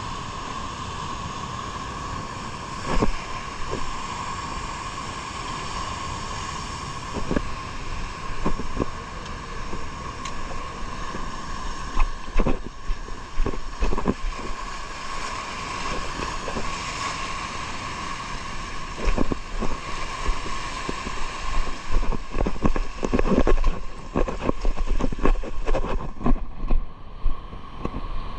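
A boat's motor running steadily, its hum holding one pitch, with wind buffeting the microphone and water noise. Scattered knocks come through, more often in the second half.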